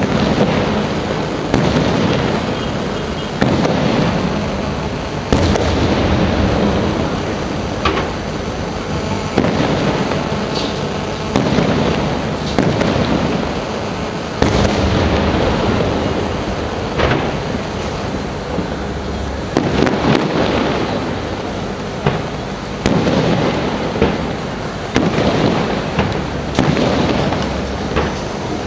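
Aerial firework shells bursting one after another, a loud boom every second or two, each followed by a rolling echo.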